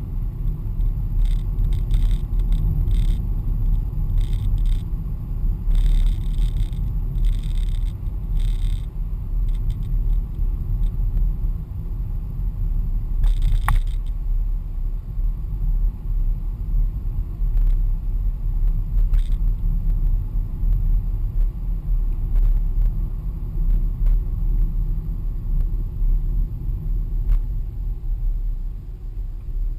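Car driving on a country lane, heard inside the cabin: a steady low rumble of road and engine noise. Light rattles come and go in the first several seconds, and there is a single sharp click about halfway through.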